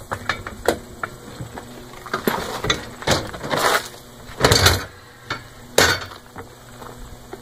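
Plastic dump cart tub, with its steel axle frame and mounted wheel, being turned over on gravel: scrapes and knocks, with the loudest thud a little past four seconds in and another sharp knock near six seconds.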